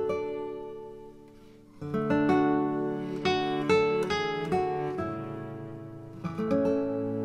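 Background music on acoustic guitar: a plucked chord fades away, then a run of plucked and strummed notes starts about two seconds in.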